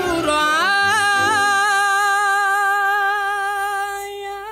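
Sung theme-song ending: a singer slides up into the final word, 'oscuro', and holds it as one long note with vibrato. The backing instruments drop out about a second and a half in, leaving the voice alone.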